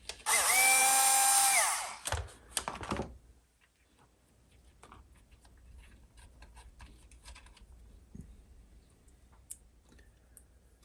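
A small handheld power tool's motor runs for under two seconds at the start and winds down as it stops. A few sharp clicks follow, then faint light ticks of small metal parts being handled.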